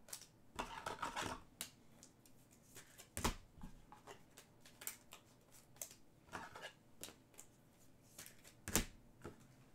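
Trading cards being handled and sorted on a table: soft rustles of card stock with scattered sharp clicks, the loudest about three seconds in and again near the end.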